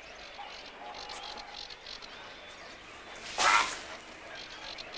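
Grey heron at its nest giving one short, harsh call about three and a half seconds in, over a faint background of distant wetland bird and frog calls.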